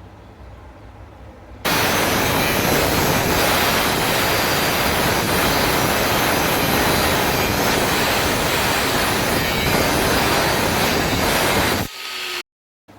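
Stick-welding arc burning steadily on thin galvanized metal: a loud, even noise that starts abruptly about two seconds in and cuts off shortly before the end.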